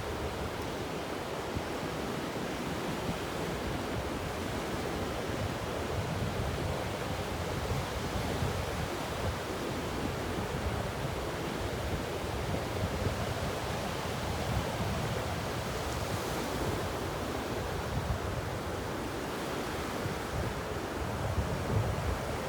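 Ocean waves washing onto a beach in a steady continuous rush, with a low rumble that swells and eases, and some wind buffeting the microphone.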